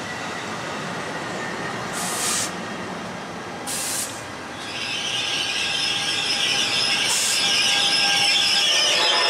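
NJ Transit double-deck commuter coaches rumbling past at close range on steel rails, with two short hissing bursts in the first half. From about halfway the electric locomotive comes by and the sound swells into a louder, steady high whine and hum.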